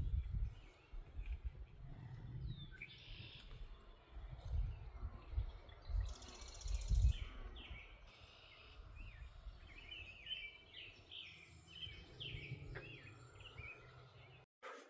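Wild birds calling outdoors: a call about three seconds in, a buzzy call near the middle, and a run of short chirps later on. Irregular low thuds and rumble run underneath.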